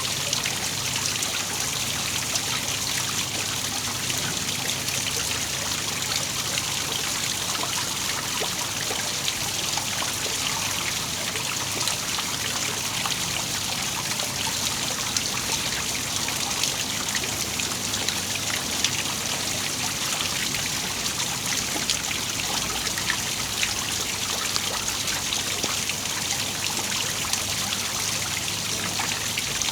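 Waterfall splashing steadily, with small irregular splashes over an even rush of water.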